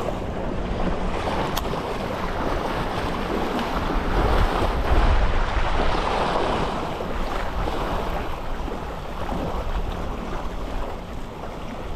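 Waves washing at the jetty under wind buffeting the microphone, a steady rushing noise with a low rumble that swells about four to six seconds in.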